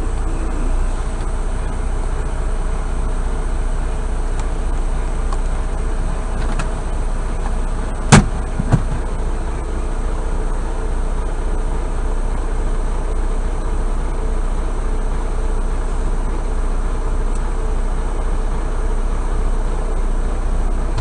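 Semi-truck's diesel engine idling steadily, heard from inside the parked cab. About eight seconds in come two sharp knocks about half a second apart, the first much louder.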